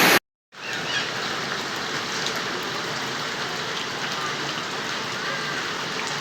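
Steady heavy rain hissing, beginning a moment in after a brief gap, with a faint short chirp about five seconds in.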